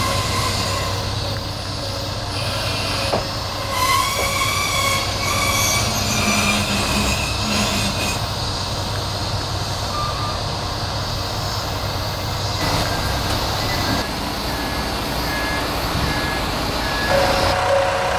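Kanto Railway diesel railcar 2101 pulling into a station platform and coming to a stop, its diesel engine running under high squealing tones from the wheels and brakes about four to eight seconds in.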